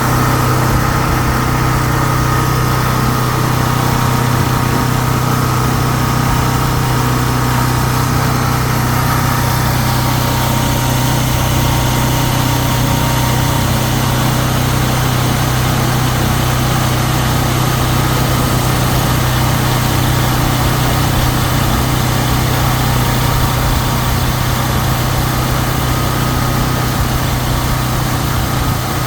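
A belt grinder's electric motor running steadily: a constant low hum over an even, unchanging whir.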